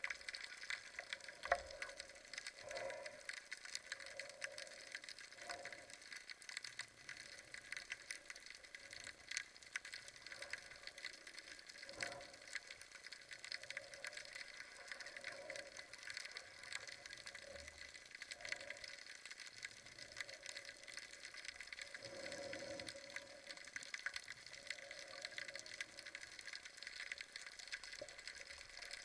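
Faint underwater ambience heard through a waterproof camera housing: a steady hiss with constant fine crackling, a few sharper clicks, and now and then a soft whoosh of water moving past the swimming diver.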